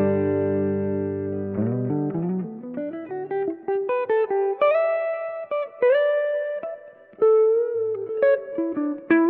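Electric guitar played through the Ampero II Stomp's Dumbell ODS 2 amp model, a clean tone with light crunch. A chord rings out, then a run of single notes climbs in pitch, with a slide up around the middle and vibrato on a held note near the end.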